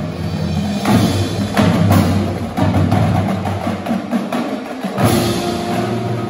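Indoor percussion ensemble playing: marching snare drums, tenor drums and bass drums in dense rapid rhythms over marimbas and a synthesizer. A little past five seconds in, held pitched notes come in under the drumming.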